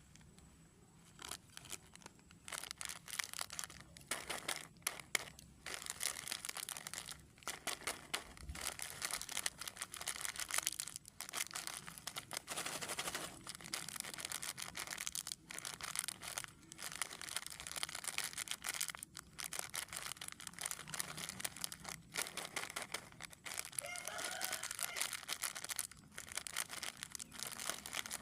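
Plastic snack wrappers crinkling and tearing as they are handled and opened, in a dense run of crackles with short pauses.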